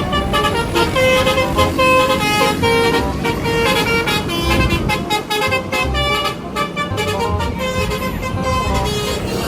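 Telolet bus horn sounding a quick melody of short stepped notes, with vehicle engine rumble beneath.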